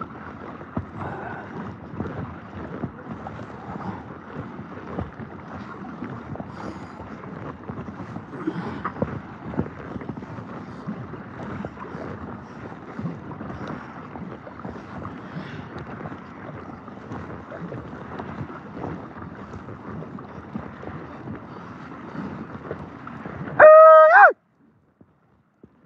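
Kayak being paddled: steady, uneven splashing of water with wind on the microphone. Near the end a man gives one loud, short, high-pitched yell, and then the sound cuts off suddenly.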